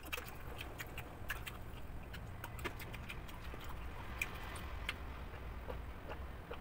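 Faint, scattered small clicks of eating and drinking: mouth and swallowing sounds while chewing fried chicken and sipping from a glass, over a low steady hum.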